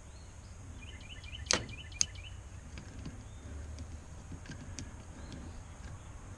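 Plastic ratcheting hose clamp on a fuel line being squeezed shut with pliers: two sharp clicks about half a second apart, followed by a few faint ticks.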